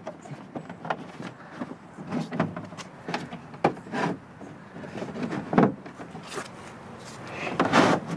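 Ford OEM plastic rear wheel liner being pushed and worked up into a pickup's rear wheel well: irregular knocks and scrapes of stiff plastic, with a longer, louder scrape near the end.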